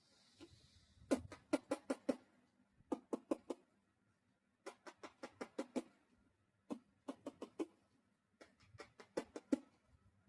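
A man making rapid popping clicks with his mouth as playful sound effects, in quick runs of four to seven pops with short pauses between the runs.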